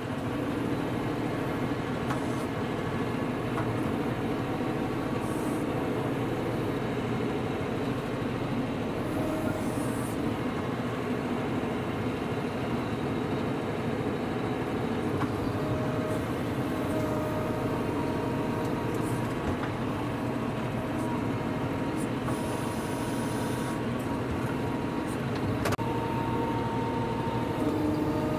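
John Deere 5075E utility tractor's diesel engine running steadily under load as its front loader bucket pushes through compacted, rocky soil. A few faint tones come and go, with occasional light knocks.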